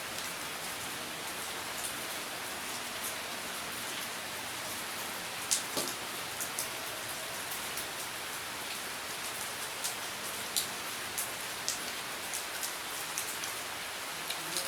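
Steady rain falling in a continuous hiss, with scattered short sharp clicks and taps throughout, the loudest about five and a half seconds in.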